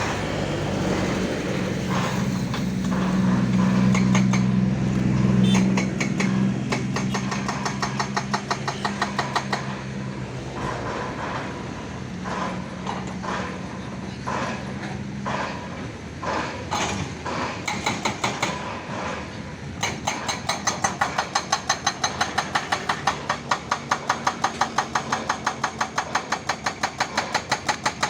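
Hyundai excavator's diesel engine running and revving under load, then its hydraulic rock breaker hammering: scattered blows at first, settling into a steady train of about three sharp blows a second in the last third.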